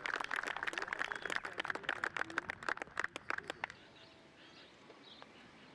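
Scattered applause from a small golf gallery, thinning out and stopping about four seconds in. After it there is outdoor quiet with a few faint bird chirps.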